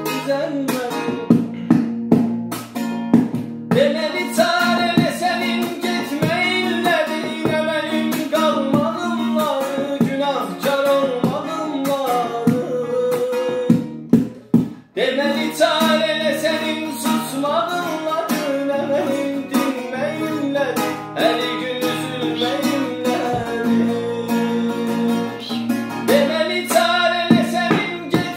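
A man singing a slow, ornamented melody with many pitch turns over guitar accompaniment and sustained low chords. There is a brief break about halfway through.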